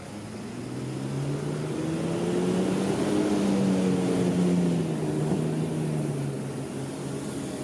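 Electric train passing on the line, its motor hum rising then falling in pitch as it goes by. It grows louder to a peak about halfway, then eases off.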